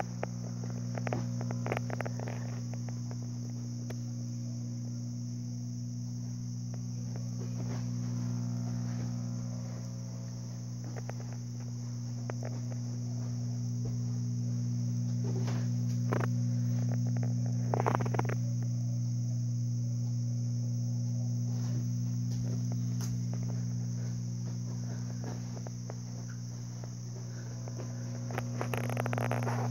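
Restored 1949 Admiral 19A11 tube television switched on, giving off a steady low hum and a steady high hiss, with a few brief knocks along the way.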